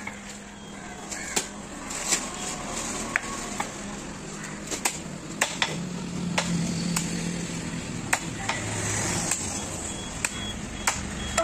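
Heavy chopping knife striking through a large fish into a wooden block, in irregular sharp chops about one or two a second.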